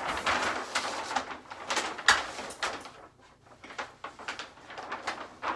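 Rustling and crackling of a large paper wall map being handled and folded, with a few sharp knocks, the sharpest about two seconds in.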